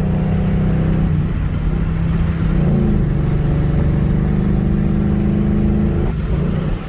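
2013 Ford Mustang GT's 5.0-litre V8 engine running under way, heard from inside the car. The engine note steps up in pitch about two and a half seconds in, holds, then drops near the end.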